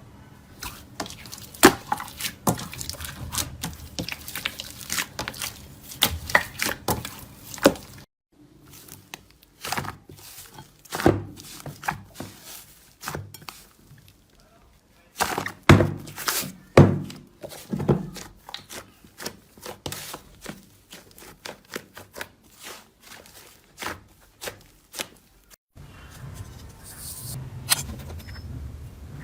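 Slime being handled, squeezed and poked, giving a quick series of sharp pops and clicks. The sound cuts off abruptly twice, where the next clip begins.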